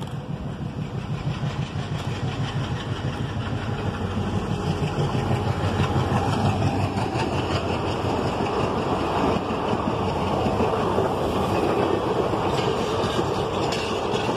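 WDM-3A diesel locomotive's 16-cylinder ALCO engine running hard as it approaches and passes at speed, growing steadily louder. From about halfway through, the coaches take over with a steady rush of wheels on rail.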